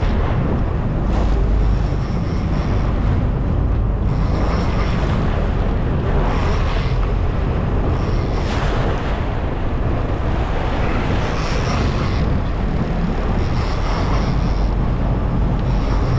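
Wind buffeting the microphone aboard a sportfishing boat, over a steady low rumble and the wash of choppy sea, swelling in gusts every couple of seconds.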